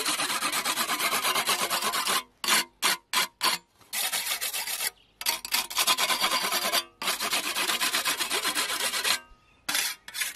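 Whetstone scraped in quick short strokes along the edge of a freshly peened scythe blade, stone rasping on steel. It is stripping off the wire edge (burr) left by the peening so the blade will cut. A few short pauses, with a run of short separate strokes about two to four seconds in.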